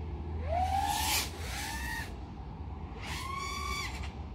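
Orqa Dream X 5-inch FPV quadcopter's brushless motors and propellers whining in throttle bursts: a rising whine about half a second in that is loudest near one second, a shorter burst near two seconds, and another from about three seconds. A steady low hum runs underneath.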